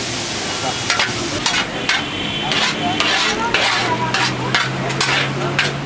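Julienned carrots sizzling in hot oil in a large metal pot while a metal spatula stirs them, scraping the pot in a quick run of strokes, about two or three a second, starting about a second in.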